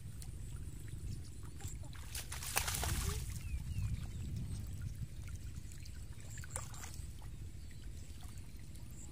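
Hands groping and sloshing in shallow muddy water, with a louder splash about two and a half seconds in and a smaller one later, over a steady low rumble.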